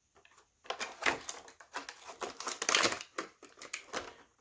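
Plastic toy packaging crinkling and crackling, with a rapid, irregular run of small clicks and taps as an action figure and its parts are handled; busiest a little before three seconds in.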